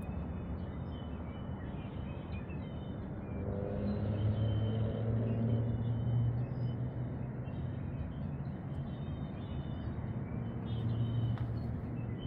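Steady rush of ocean surf with small birds chirping and singing through it. A low engine drone swells up about four seconds in and fades, then returns near the end.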